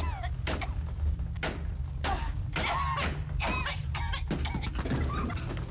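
Repeated blows struck against a window, about two a second, by someone trying to break it open, with a woman's short panicked cries between the blows over a low, steady drone.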